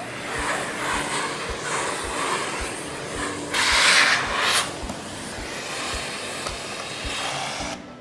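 Miele Blizzard CX1 bagless vacuum cleaner running, its small upholstery nozzle drawing air across a fabric chair seat as a steady rushing noise that gets louder for about a second midway and stops just before the end. Background music with a steady beat plays underneath.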